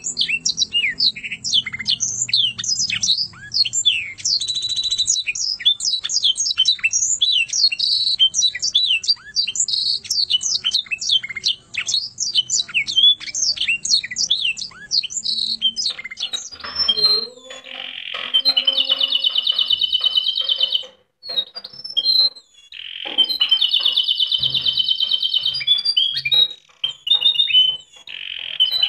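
Caged contest canaries singing: first a fast run of sharp, high, downward-sweeping notes, then, about sixteen seconds in, a different canary's rolling trills in long phrases broken by short pauses.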